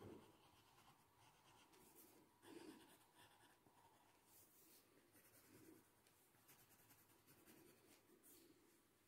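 Faint scratching of a graphite pencil on drawing paper in a few short strokes, the clearest about two and a half seconds in.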